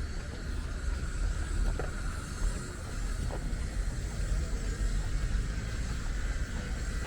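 Street ambience dominated by a steady low rumble of passing traffic.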